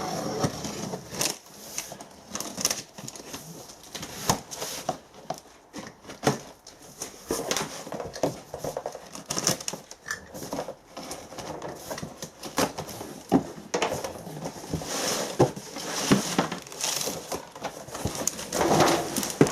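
Cardboard box and packaging being opened and handled: a run of irregular knocks and clicks with crinkling and rustling, busiest near the end.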